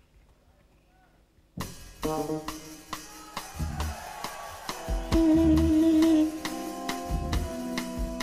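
Near silence, then about a second and a half in a live jazz band starts abruptly: drum kit with cymbals and bass drum under held pitched notes.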